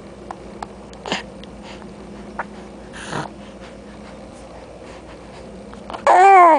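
Baby breathing and sniffing close to the microphone, with small mouth clicks, then near the end a short, loud squeal with a wavering pitch lasting about half a second.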